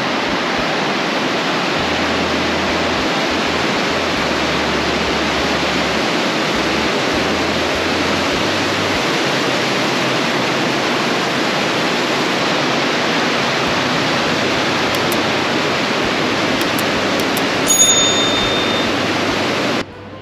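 Steady, loud rush of the Nagold river in flood, even and unbroken, cutting off suddenly just before the end. A brief high-pitched chirp sounds over it near the end.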